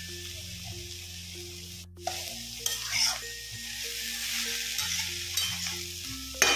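Steel spatula stirring and scraping shredded cabbage and onion around a kadhai over the gas, with a light sizzle of the vegetables frying in oil.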